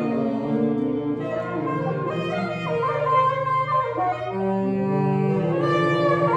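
Free-jazz improvisation by a woodwind ensemble of clarinet, alto and tenor saxophones, several horns holding overlapping long tones at different pitches that shift every second or so.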